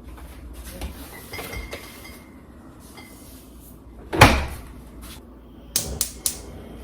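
Kitchen handling sounds during cooking prep: light rustling, one loud knock about four seconds in, then three sharp clicks in quick succession near the end.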